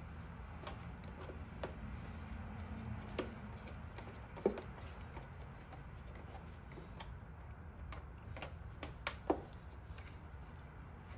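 Scattered light clicks and taps of a hand tool working the bolts on a motorcycle's bodywork, with a few sharper knocks about halfway and near the end, over a low steady hum.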